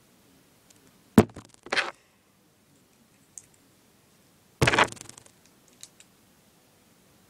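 Handling noise: a sharp click about a second in and a short rustle, then a louder knock with rustling near the five-second mark, with a few faint ticks between.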